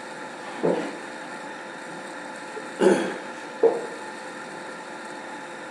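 A congregation sitting back down in church pews: three short knocks or creaks of seats, one about a second in and two close together about three seconds in, over a faint steady hiss.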